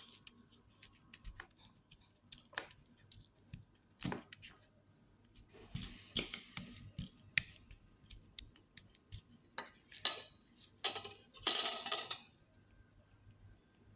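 Light, scattered clicks and clinks of kitchenware being handled, with louder noisy rustling bursts about six seconds in and again from about ten to twelve seconds in.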